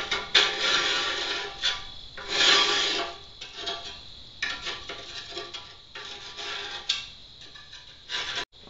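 Hand scraper scraping loose particles off the inside of a gas grill's hood in a run of rough strokes. The longest and loudest stroke comes about two seconds in, and the later ones are fainter. The sound cuts off suddenly near the end.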